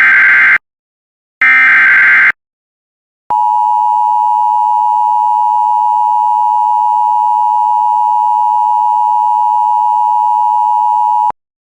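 Emergency Alert System signal: two short warbling SAME header data bursts, then the two-tone EAS attention signal (853 and 960 Hz together) held steady for about eight seconds before cutting off sharply. It marks the start of a broadcast severe thunderstorm warning.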